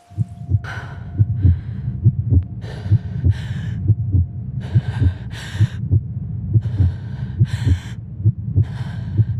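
Heavy, panting breaths, an in- and out-breath about every two seconds, over a low thumping pulse of about three beats a second like a racing heartbeat.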